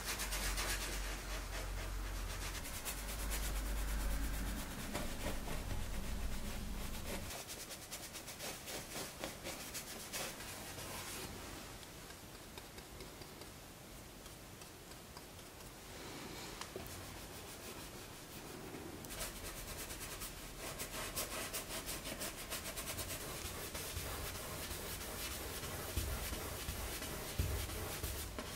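Paintbrush rubbing and scratching across canvas in close, repeated strokes. A low hum runs underneath and stops about seven seconds in.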